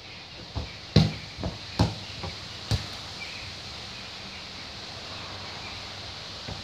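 Dull thuds of a football, about six in the first three seconds, the loudest about a second in, then only steady garden background noise.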